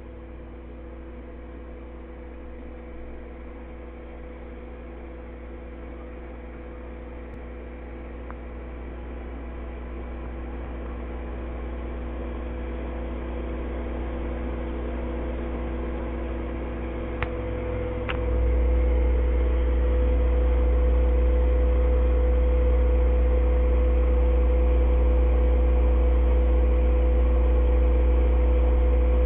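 Steady electrical hum with a few faint steady tones above it, slowly growing louder. Two light clicks about 17 seconds in, and just after them the low hum steps up louder and stays there.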